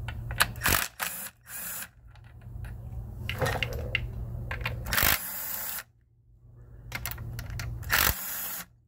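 Cordless impact driver with a Torx bit backing out the screws that hold the auxiliary pump on a Ford 10R80 transmission. It runs in several short start-stop bursts, with a pause of about a second after the middle.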